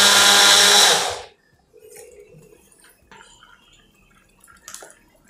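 Electric mixer-grinder blending muskmelon, running at full speed and switching off about a second in. Faint liquid sloshes and small clinks of the jar follow.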